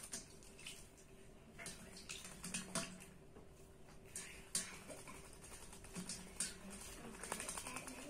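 A myna bathing in a steel bowl of water: several short bouts of quick splashing and wing-fluttering, the water spattering around the bowl. The sounds are faint.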